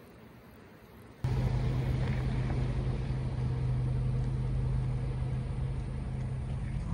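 A motor vehicle running at a steady pace: a constant low engine drone with road noise. It starts suddenly about a second in, after faint background sound.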